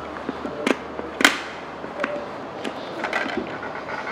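Small plastic clicks and handling of an Arai RX-7x visor pivot mechanism as the visor and base plate are worked by hand. There is a sharp click under a second in, a louder one just over a second in, and lighter ticks later.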